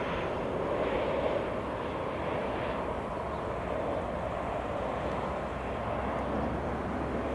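Twin-engine business jet's turbofan engines at approach power as it flares just above the runway to land: a steady rush of engine noise.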